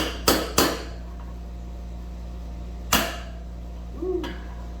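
Hammer blows on a socket, driving a new front wheel bearing into a Suzuki DRZ400SM wheel hub by its outer race: three quick metal-on-metal strikes about a third of a second apart, then one more about three seconds in. A steady air-conditioner hum runs underneath.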